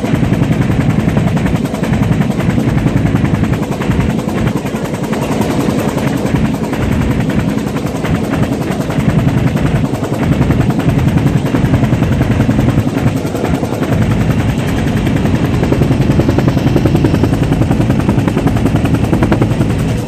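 Helicopter in flight heard from inside its open-door cabin: the loud, rapid, steady thumping of the rotor blades.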